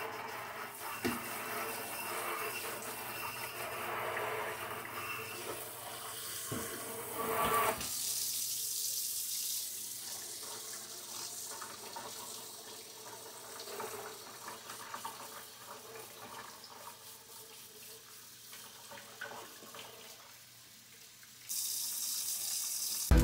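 Kitchen faucet running into a stainless steel sink while vacuum cleaner filters are rinsed under the stream by hand. The water splashes fuller at first, then turns to a thinner, quieter hiss about eight seconds in.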